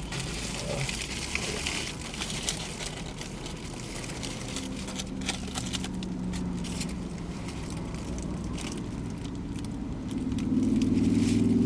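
Sandwich wrapper paper crinkling and crackling in scattered bursts as it is handled, over a steady low hum. About ten seconds in, a louder steady droning tone comes in.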